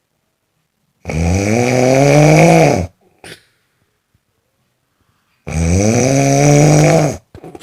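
Snoring: two long snores, each lasting nearly two seconds, about four seconds apart, each followed by a brief short sound.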